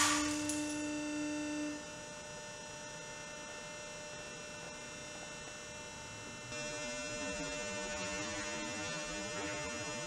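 A steady hum made of several even tones follows the fading tail of a carabiner snapping on a break-test bed. One lower tone stops just under two seconds in, and the background noise rises slightly about six and a half seconds in.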